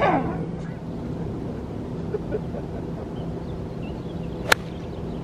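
A golf club striking a ball off the fairway: one sharp crack about four and a half seconds in, over a steady low background hum.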